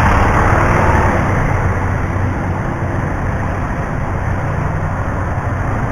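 Motorcycle engine running with steady wind rush, heard through a microphone inside the rider's helmet with the visor open.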